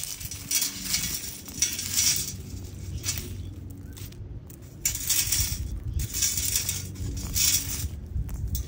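Stainless steel perforated sand scoop shaken in repeated short shakes, dry sand and leaves hissing out through the holes, with small metal clinks against the scoop.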